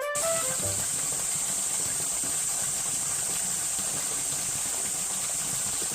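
Mountain stream water running steadily over rocks, an even rushing hiss.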